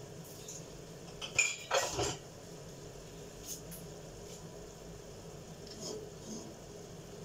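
Kitchen utensils and cookware clattering: a quick run of clinks and knocks about a second and a half in, the loudest part, then lighter clinks near six seconds as a wooden spatula is taken up beside the frying pan. A steady low hiss runs underneath.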